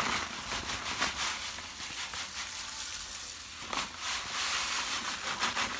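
Crushed malt grain pouring from a plastic bag into a brewing malt pipe, a steady grainy hiss with the bag rustling.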